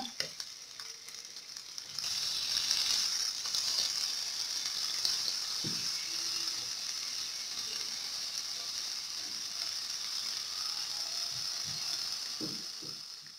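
Strips of zucchini, carrot, red pepper and onion sizzling in a hot frying pan, a steady high hiss that grows louder about two seconds in, with a few soft knocks as they are stirred.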